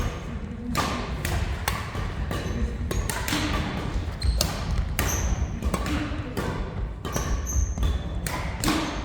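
Badminton rally: rackets repeatedly striking a shuttlecock in sharp cracks, several a second at times, with brief squeaks of court shoes on the floor.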